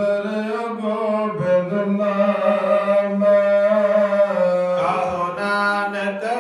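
Sikh devotional kirtan: a man's voice holds and bends long sung notes over a steady drone, with no words in between.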